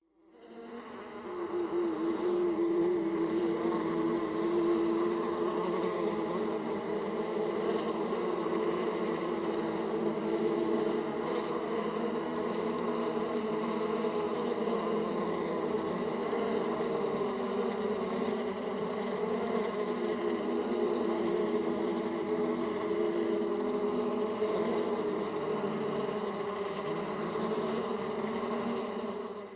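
Many bees buzzing together in a steady, dense hum of overlapping wingbeat tones. It fades in over the first couple of seconds and cuts off at the end.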